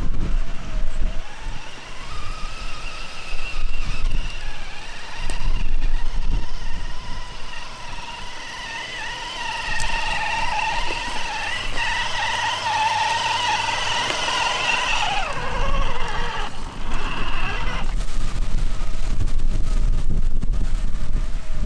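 Electric RC crawler truck's brushless motor and geartrain whining, the pitch wavering with throttle as it crawls over brush. The whine builds through the middle, slides down in pitch as the truck slows, and stops a few seconds before the end, over a steady low rumble.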